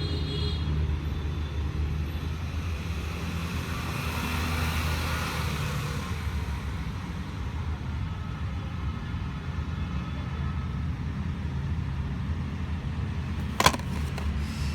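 Steady low rumble of road traffic, swelling for a couple of seconds as if a vehicle passes, with one sharp click near the end.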